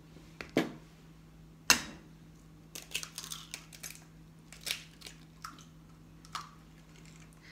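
Chicken eggs being cracked by hand over a glass mixing bowl: one sharp crack about two seconds in, then several smaller cracks and snaps of shell as the shells are broken open.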